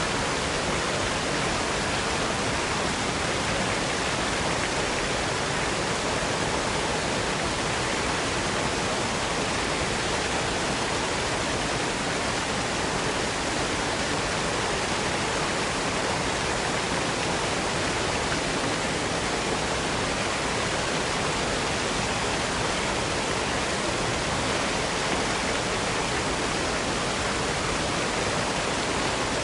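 Waterfall: a steady, even rush of falling water that doesn't change.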